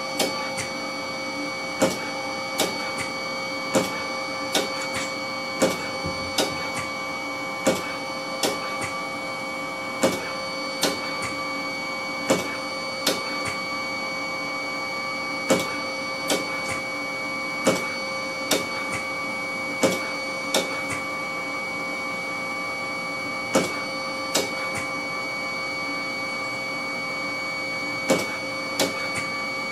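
ARTAS robotic hair-transplant system harvesting follicular grafts: its punch mechanism clicks sharply about once a second, with a few short pauses, over a steady machine hum with several high, even tones.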